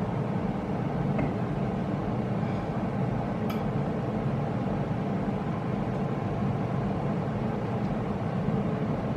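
Steady low mechanical hum, even in level throughout, with a faint click about three and a half seconds in.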